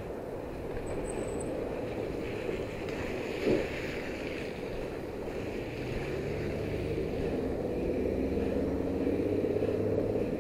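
Steady outdoor rumble and hiss on an action camera's microphone, with distant street traffic. A single short knock comes about three and a half seconds in, and a low engine hum builds over the second half.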